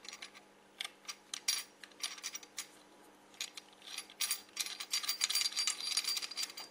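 Light metallic clicks and clinks as a CO2 gas barb is screwed by hand into the threaded port of a counter pressure bottle filler. They are scattered at first, then come in a quick, dense run about four seconds in.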